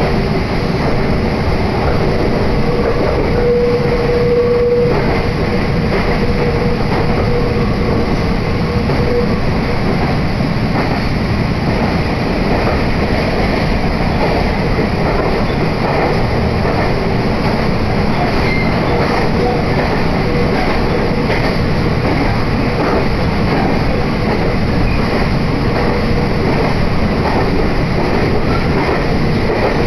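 Meitetsu Hiromi Line train running between stations, heard from inside the carriage: a steady rumble of wheels on rail. A humming tone rises out of the rumble for a few seconds near the start and comes back faintly in the second half.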